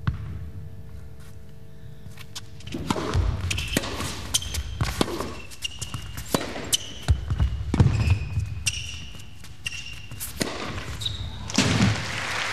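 Tennis rally on an indoor hard court: sharp racket strikes and ball bounces, starting about three seconds in, with short high squeaks of shoes on the court, heard with the echo of a large hall. A rush of noise follows near the end.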